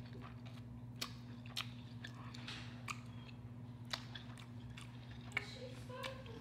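Close-miked chewing of a mouthful of seafood boil, with scattered soft clicks and smacks, over a steady low hum. A short hummed tone comes near the end.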